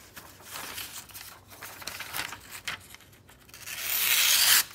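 Phone-book paper rustling as it is handled, then a fixed-blade neck knife slicing quickly through the sheet near the end: a rising paper hiss, the loudest sound, that stops abruptly as the cut finishes.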